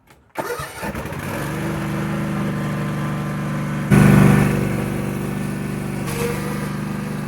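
An engine running steadily, rising to a brief louder rev about four seconds in, then settling back.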